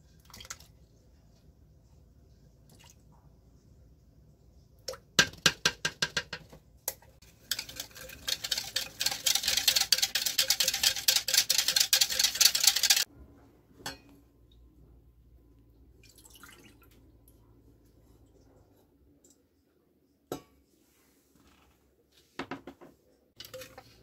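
Metal spoon whisking vanilla pudding powder into a little milk in a small plastic bowl, clicking and scraping against the sides. A short run of strokes comes first, then about five seconds of fast, steady whisking that stops suddenly, then a few single clicks.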